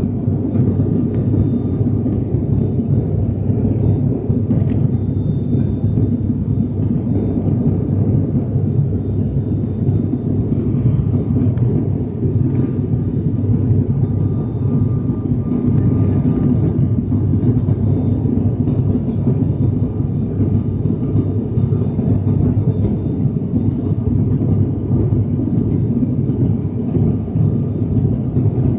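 Steady drone of an ATR 72-600's turboprop engines and propellers, heard from inside the passenger cabin in flight: a deep, even rumble with a faint high whine held above it.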